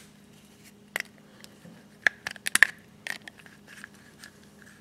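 Needle-nose pliers clicking and scraping against the wire retaining clip in the hub of a Jeep Wrangler's plastic manual window crank handle as the clip is worked out. Scattered small sharp clicks, one about a second in and a quick cluster around two and a half seconds.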